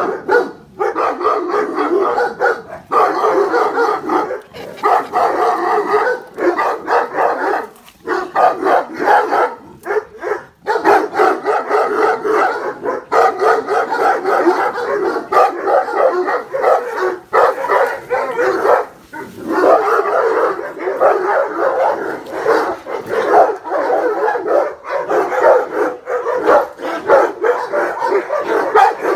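Several guard dogs barking at once in a dense, nearly unbroken run of overlapping barks, with only a few brief pauses. This is alarm barking at an intruder approaching the house.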